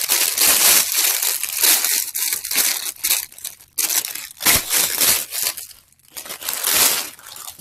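Clear plastic wrapping crinkling in loud, irregular bursts as it is handled, crumpled and pulled off a plush toy, with a brief lull about six seconds in.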